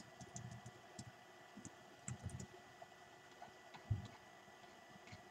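A handful of faint, scattered computer keyboard keystrokes and mouse clicks, the strongest about four seconds in, over quiet room tone.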